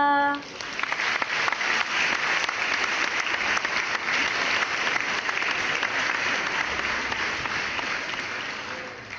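An audience applauding, many hands clapping together in a dense, steady patter that fades away at the end.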